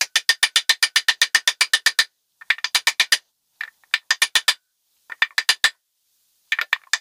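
A medium-weight hammer taps a socket to drive a brass core (freeze) plug into a 283 small block Chevy's cast-iron block. The taps come fast, about eight a second for the first two seconds, then in shorter groups with brief pauses, walking the plug in until it sits flush.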